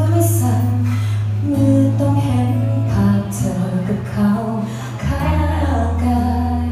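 A woman singing a Thai pop song into a handheld microphone over instrumental accompaniment with sustained bass notes; the bass changes note about a second and a half in and again about five seconds in.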